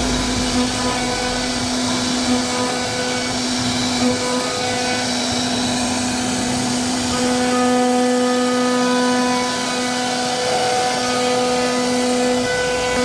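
CNC router spindle running as it carves a wooden door panel: a steady high whine over a broad hiss of cutting, with the tone dropping out briefly a few times.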